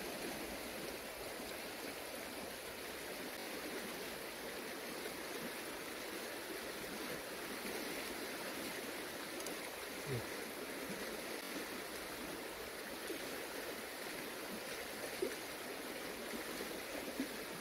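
Steady rushing background noise, with a few faint knocks and scrapes as gloved hands set a metal mole trap into a hole of loose soil.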